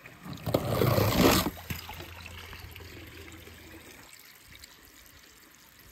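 Water splashing in a plastic tub for about a second, starting about half a second in, then trickling that fades away over the next few seconds.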